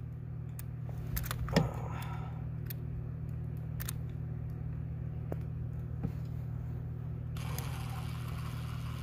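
Cordless drill driving a screw near the end, starting suddenly and running for about a second and a half, after a few sharp clicks and knocks of handling the wires and the drill. A steady low hum sits under it all.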